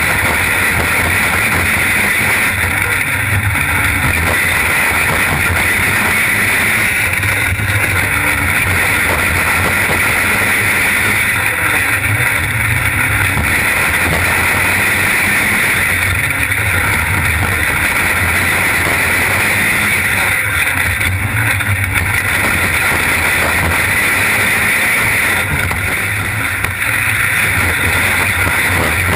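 Onboard sound of a winged sprint car's engine running hard at racing speed on a dirt oval, with heavy wind and vibration noise. The note eases and picks back up about every four to five seconds, in time with the laps.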